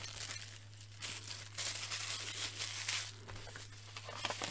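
Packaging being handled: crinkling and rustling, loudest from about one to three seconds in.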